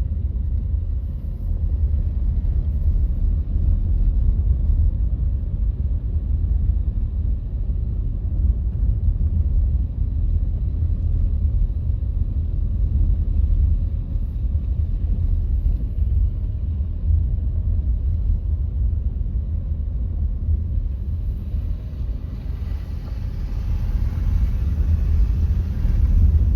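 Car driving along a snowy road: a steady low rumble of engine and road noise, with a higher tyre hiss that swells near the end.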